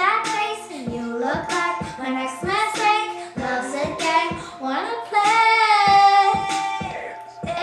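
A young girl singing a pop song over a steady clicking beat, about three clicks a second, holding one long note near the end.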